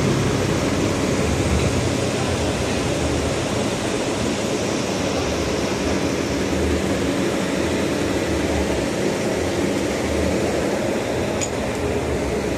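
A sound-system truck's generator (genset) running with a steady, even mechanical noise. A single faint click comes near the end.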